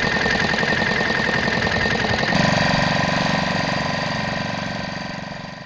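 A small engine running with a rapid, even knocking beat. It changes tone a little over two seconds in and fades away near the end.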